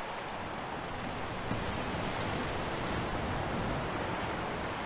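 Steady rushing sea ambience: an even wash of water and wind noise with no distinct events.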